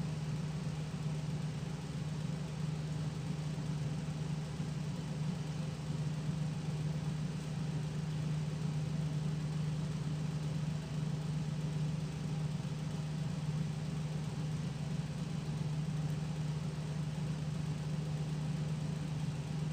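A steady low hum with no speech or music over it.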